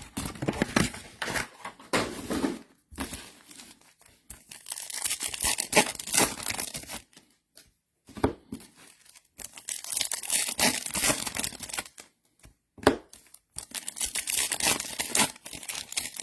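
Trading card pack wrappers being torn open and crinkled, in bursts with short pauses.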